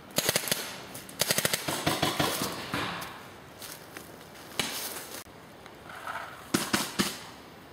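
Paintball markers firing in several quick bursts of rapid shots, with short pauses between the strings.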